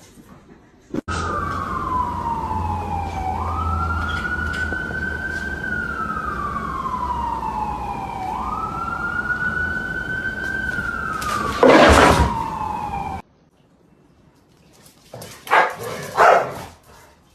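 A siren wailing, its pitch sliding slowly down and then jumping back up, about every five seconds. A short, very loud noisy burst comes near the end before it cuts off, followed by a few brief, sharp sounds.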